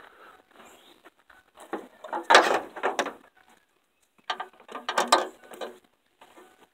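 Ratchet wrench clicking in two spells of quick strokes, tightening a fastener.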